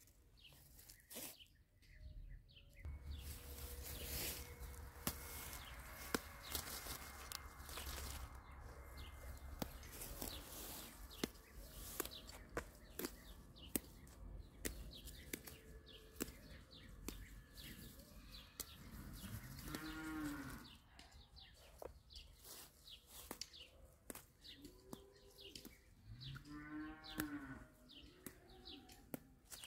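Cow mooing twice, once about two-thirds of the way in and again near the end, over soft rustling and snapping of plant stems being picked by hand.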